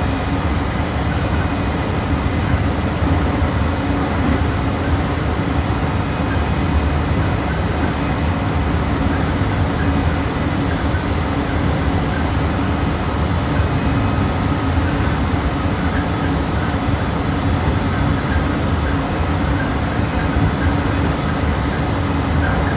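Meitetsu 3150 series electric multiple unit running at a steady speed, heard from inside the car: even wheel-on-rail rolling noise with a low hum and faint steady motor tones, with no rise or fall in pitch.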